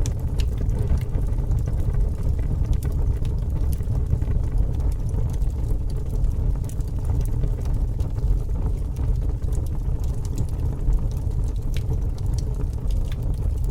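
Fire burning: a steady low rushing noise with irregular sharp crackles and pops scattered throughout.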